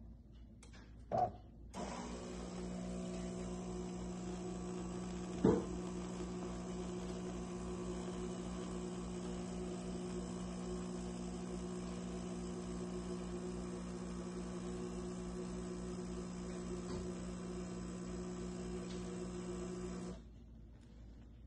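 DeLonghi PrimaDonna Elite espresso machine's pump humming steadily while it brews espresso, cutting off suddenly near the end once the shot is done. A short click comes just before the hum starts, and a sharp knock a few seconds later is the loudest moment.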